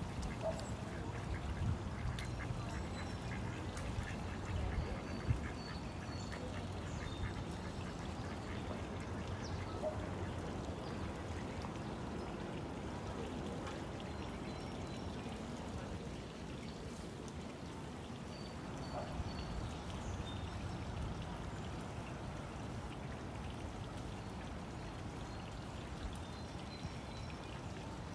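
Mallard ducks quacking a few times, softly and briefly, over the steady rush of shallow creek water.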